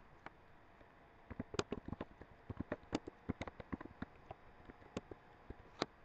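Computer keyboard typing: irregular key clicks, in a quick run starting about a second in and a few single keystrokes near the end.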